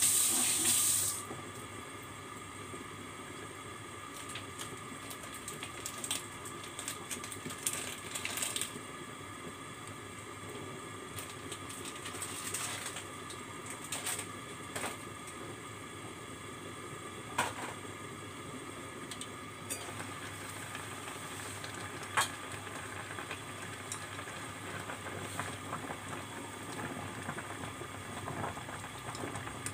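A covered stainless steel pot of water boiling on the stove: a steady bubbling hiss with scattered light clicks and taps. There is a brief louder hiss right at the start.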